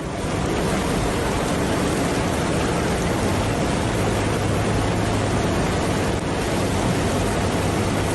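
Heavy rainstorm with rain and wind making a loud, steady hiss that starts suddenly and holds evenly, with a faint low hum beneath it.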